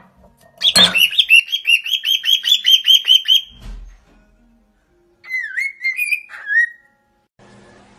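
Cockatiel calling: a sharp knock about a second in, then a fast run of high chirps, about five a second, for a couple of seconds. A dull thump follows, then a short whistled phrase that dips and rises in pitch.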